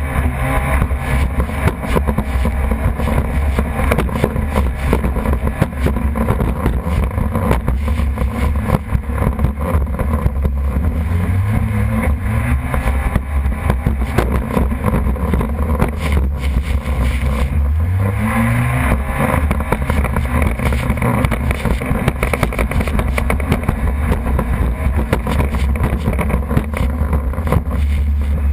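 Jet ski engine running hard under a steady noisy rush, rising in pitch several times as the throttle opens.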